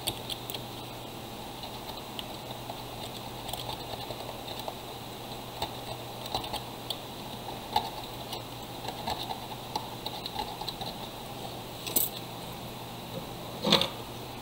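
Small tools and parts being handled on a workbench during a power bank repair: scattered light clicks, taps and rustles, with two sharper knocks near the end. A steady low hum runs underneath.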